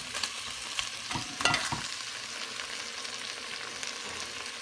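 Seim (flat beans) and potatoes sizzling in a metal pot with a little water just added, and a metal ladle scraping and knocking against the pot a few times about a second and a half in.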